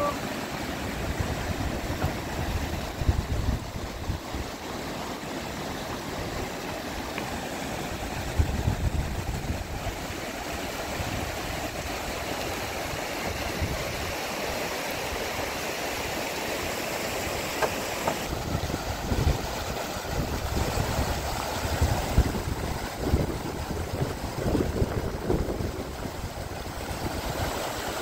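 Steady rushing of water, with irregular low rumbling gusts.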